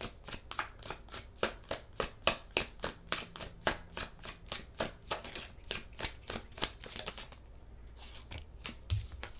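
Tarot deck being shuffled by hand, cards slapping in a quick even rhythm of about four to five strokes a second; the shuffling stops about seven seconds in.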